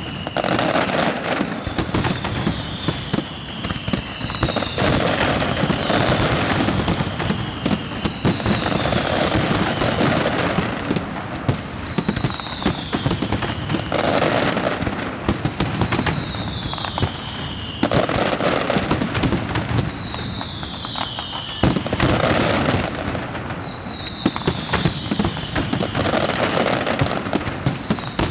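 Fireworks display: dense crackling and rapid bangs, with whistling fireworks again and again, each whistle falling in pitch.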